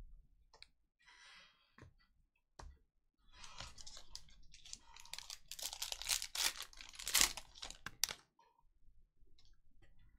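Panini football card pack being torn open, its wrapper crinkling. There are a few faint crackles early on, then a run of tearing and crinkling from about three seconds in to about eight seconds, loudest near seven seconds.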